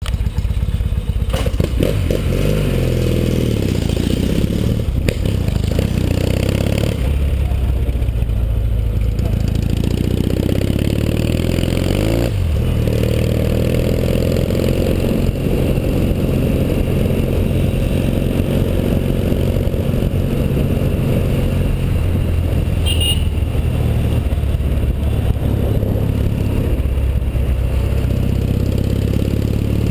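1981 Yamaha XS650's parallel-twin engine running under way, revving up and dropping back several times in the first dozen seconds, then holding a steadier pitch.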